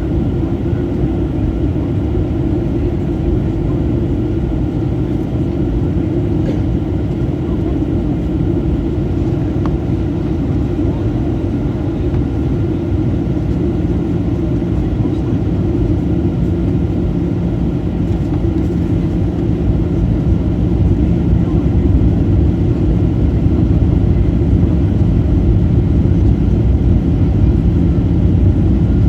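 Steady airliner cabin noise from the jet engines and rushing air, a deep even rumble. A low hum comes in about halfway, and the noise grows slightly louder near the end.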